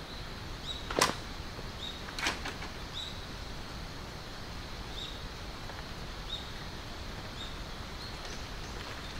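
Outdoor ambience: a steady low background hiss with a faint, short high chirp repeating about once a second, and two sharp clicks, one about a second in and a softer one just over two seconds in.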